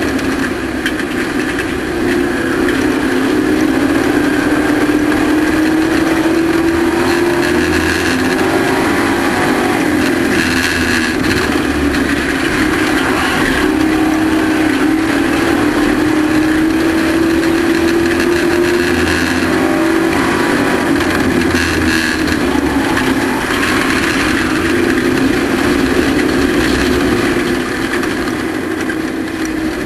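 Race truck engine running hard on a short oval: its pitch climbs for several seconds under acceleration, then drops back as the throttle lifts, over and over, about every ten seconds.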